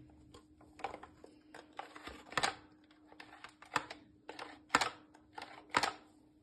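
Irregular sharp clicks and knocks of hard plastic parts being handled on a refrigerator's freezer compartment, about a dozen, with four louder knocks in the second half, over a faint steady hum.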